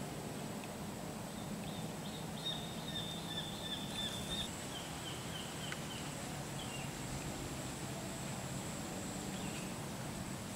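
A bird calling in a rapid series of short high chirps about two seconds in, the notes slowing and fading by about six seconds. Under it are a thin steady high whine and a low, even background noise.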